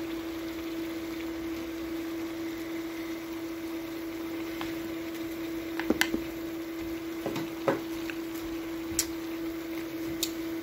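Beef and onions sizzling in a nonstick frying pan as they are stir-fried, over a steady hum from the electric cooktop. Chopsticks click against the pan several times in the second half.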